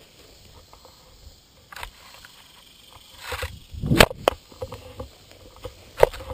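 Croquet mallet striking a ball, one sharp, loud knock heard right up close from a camera mounted on the mallet, with a short brushing swish just before it. A second, smaller sharp knock comes about two seconds later.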